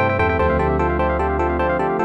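Electronic phone ringtone: a synthesized electric-piano-like melody of short stepping notes over a held bass note that stops near the end.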